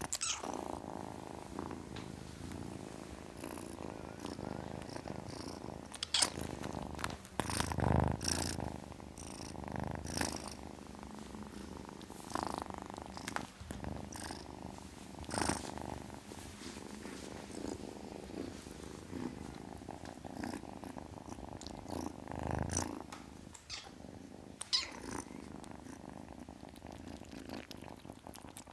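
Kitten purring steadily, with a few brief knocks or rustles over it, the strongest about six and eight seconds in.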